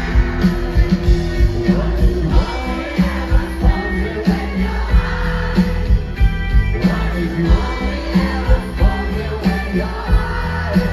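A live rock band playing through a concert PA, heard from within the crowd: drums keep a steady slow beat of about two hits a second under guitars and keyboard.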